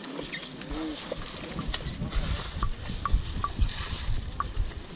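Asian elephant feeding close by: chewing food and sweeping up grass with its trunk, heard as irregular soft rustles and low thuds.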